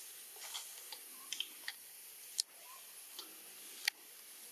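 Sharp clicks and softer ticks over a steady high hiss: scattered light ticks in the first half, then two sharp clicks about a second and a half apart, the loudest sounds, with a couple of faint short chirps between.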